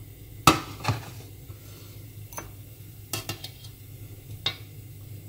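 Stainless mesh strainer clinking against the rim of a glass jar as it is handled and lifted off: several sharp metal-on-glass clinks, the loudest about half a second in.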